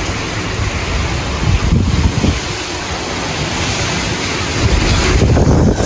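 Hurricane wind gusting hard and buffeting the phone's microphone: a loud, rough rush with a heavy low rumble, rising near the end.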